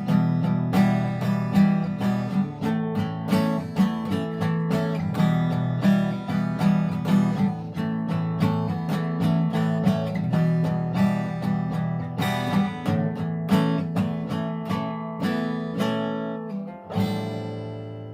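Solo acoustic guitar played fingerstyle, a steady run of plucked notes and chords, ending near the end on a final strummed chord left to ring out and fade.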